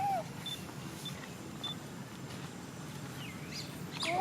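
A monkey giving short high calls that rise and fall in pitch, one at the start and a louder one near the end, with faint chirps between, over a steady low hum.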